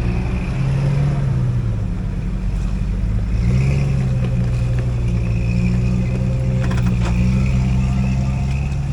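Off-road vehicle's engine running under throttle while crawling over rough ground. The revs rise about half a second in, ease off near two seconds, then rise again about three and a half seconds in and hold, with a brief clatter near seven seconds.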